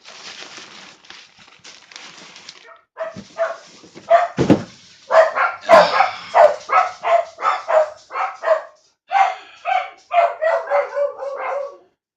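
A dog barking over and over, two to three barks a second, starting about three seconds in after some quiet rustling.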